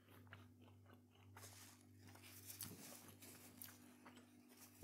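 Near silence: a faint steady room hum with a few soft clicks and rustles of a person handling a paper napkin at a table.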